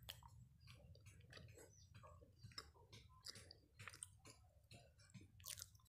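Near silence with faint, irregular crackling ticks and pops from a curry masala simmering in an aluminium kadai over a wood fire.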